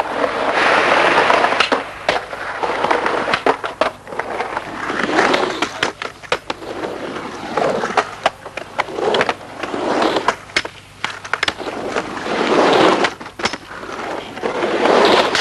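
Skateboard wheels rolling in several separate passes, with many sharp clacks of the board striking the ground.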